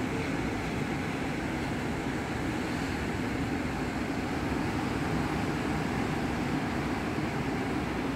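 Ocean surf breaking on a sandy beach: a steady wash of wave noise with no distinct splashes standing out.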